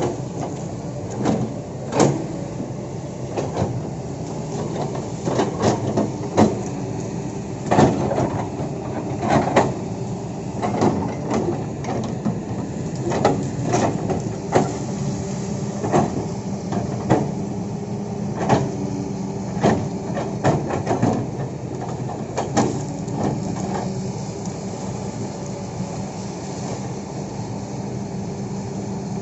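Kobelco excavator's engine running steadily, with frequent irregular sharp knocks and clanks from the machine working.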